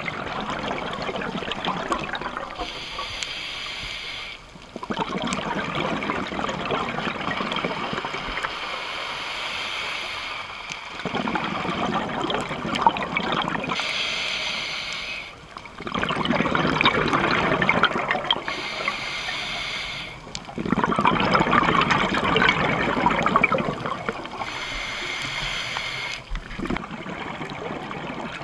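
Scuba diver's regulator breathing underwater: stretches of hiss alternate with longer stretches of bubbling exhaust, over several breaths.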